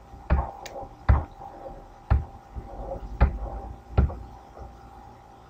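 Five sharp clicks, each with a dull low thump, about one a second: computer input clicks as a document is paged through.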